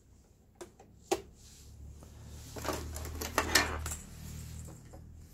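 Light clicks and clatter of small hard metal and plastic parts being handled around a Brother Star 400 sewing machine: two sharp clicks in the first second, then a busier run of clattering about midway through, over a low steady hum.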